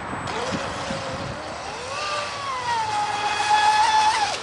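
Radio-controlled speedboat's motor whining as the boat accelerates from rest: the pitch climbs steeply over the first two seconds, then holds high and grows loudest as the boat runs at speed, before falling away just before the end.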